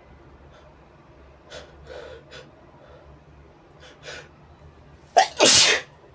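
A person's sneeze brought on by tickling the nose with a brush. A few short catching breaths build up, then near the end comes a quick sharp intake and one loud sneeze lasting about half a second.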